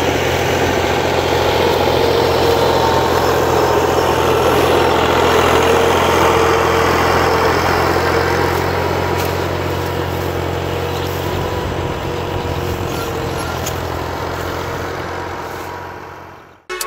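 New Holland Ghazi 65 hp tractor's diesel engine running steadily under load as it pulls an 11-tine cultivator through flooded mud. It gets louder as it passes close, then fades as it moves away, and cuts off suddenly near the end.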